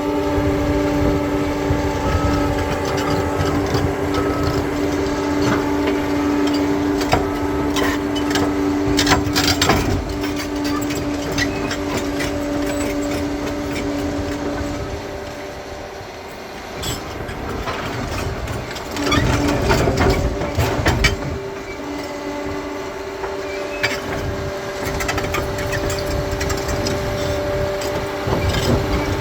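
Bulldozer diesel engine running steadily, with knocking and clatter of rock against the blade and tracks. Halfway through, the engine eases off briefly, then comes back with a loud burst of rock clatter.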